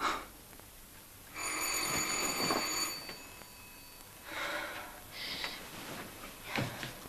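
An electric doorbell rings once, one continuous ring of about a second and a half, waking a sleeper. Then come softer breathing and bedclothes rustling as she stirs and sits up in bed.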